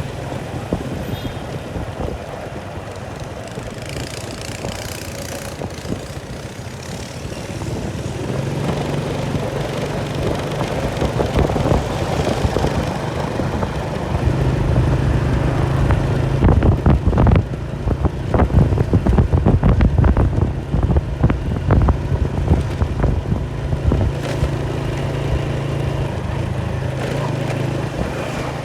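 An engine running steadily, its hum growing louder about eight seconds in, with wind buffeting and knocking on the microphone through the middle part.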